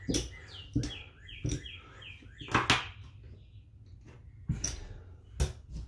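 Clay casino chips clicking as they are set down one by one on a craps table's felt and picked from a chip rack: a string of sharp clacks. About a second in, a small bird chirps a quick run of short, high, falling notes.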